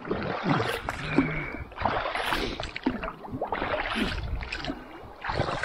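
Paddle strokes splashing in the river beside a small inflatable boat, one stroke every second or so.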